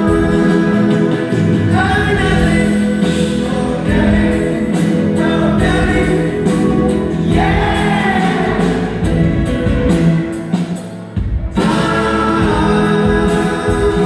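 Rock band playing live, heard from the audience in a large hall: male lead vocals with harmony voices over acoustic guitars, keyboards and drums. About ten seconds in the band briefly drops almost to a stop, then comes back in full.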